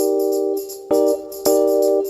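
Background music: sustained chords that change about a second in, over a quick, high, jingling percussion beat.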